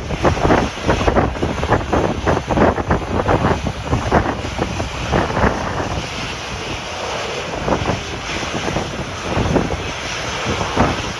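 Strong gusty wind buffeting the microphone, a loud rushing rumble with irregular surges, heavier in the first half and steadier later.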